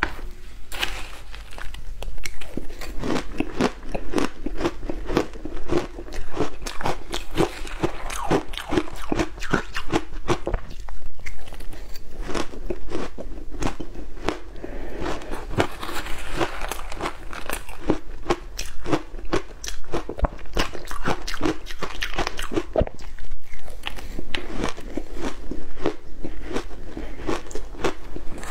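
Chunks of matcha-coated ice being bitten and chewed close to a clip-on microphone: dense, rapid crunching and crackling with a few brief pauses.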